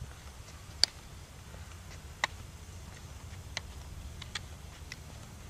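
Steady low open-air rumble with five faint, sharp clicks spaced a second or so apart.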